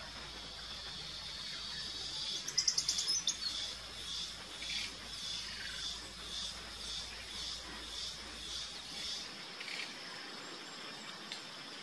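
Amazon rainforest insects making a steady high-pitched drone. A rapid burst of clicks comes about two and a half seconds in, then a high chirp repeats nearly twice a second for several seconds.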